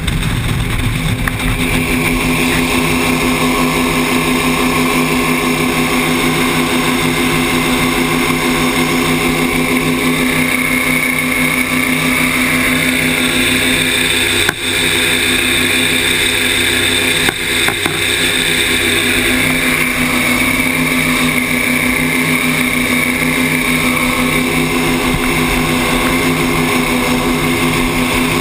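Powerboat engine running steadily at speed, with rushing wind and water noise on the camera. The sound dips briefly twice around the middle.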